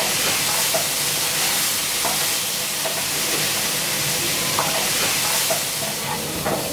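Cockroaches frying in oil in a pan: a steady sizzle, with a few faint scrapes of a wooden spatula stirring them.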